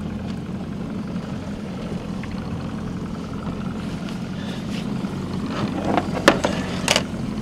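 Boat's outboard motor idling steadily, with a few sharp knocks near the end.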